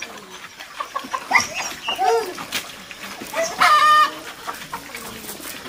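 Chickens clucking and calling: a few short arched calls, then a louder, higher held call just before four seconds in.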